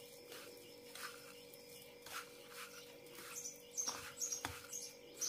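Hand squeezing and rubbing a damp, crumbly mix of grated tapioca and broken wheat in a plate, giving faint soft rustles about twice a second. From about three seconds in, a bird chirps repeatedly in the background, louder than the mixing.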